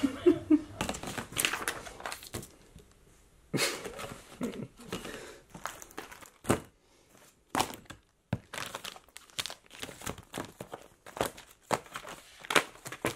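Printed paper and small gift items being handled and packed into a plastic basket: irregular paper rustling and crinkling with scattered knocks, broken by short quiet gaps.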